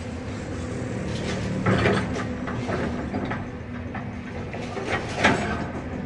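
Excavator diesel engine running steadily, with irregular clanks and crunches of demolition work. The loudest knocks come a little under two seconds in and about five seconds in.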